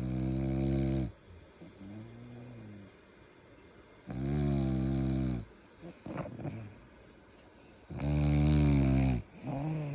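French bulldog snoring: three long, pitched snores about four seconds apart, the first ending about a second in, with softer, shorter snores between them.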